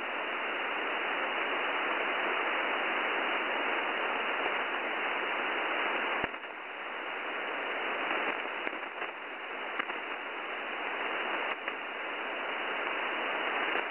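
Shortwave receiver tuned to a single-sideband voice channel with no one transmitting: steady band hiss cut off sharply above the voice range. A single click comes about six seconds in, after which the hiss briefly drops.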